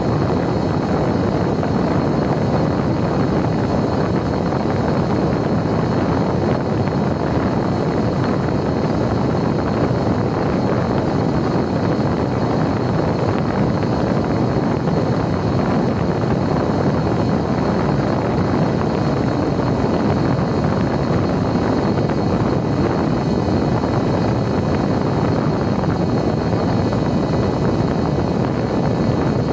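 Steady wind rush and the drone of a Mini Talon's electric pusher motor and propeller in cruising flight, picked up by the plane's onboard camera microphone, with a thin steady high whine over it.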